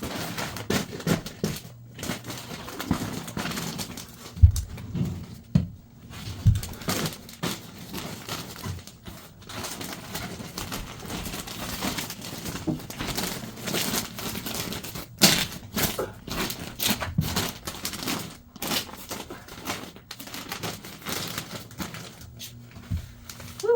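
Kraft-faced fiberglass insulation batts being handled and pressed into rafter cavities: continuous rustling and crinkling of the paper facing, with scattered sharp clicks and knocks. There are two dull thumps, about four and a half and six and a half seconds in.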